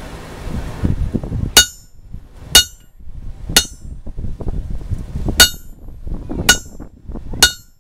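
Hammer striking a hot coil-spring steel axe head laid over a hardy cutter in the anvil, scoring the cut to part it from the bar. Six sharp blows, about a second apart with a longer pause after the third, each with a brief metallic ring.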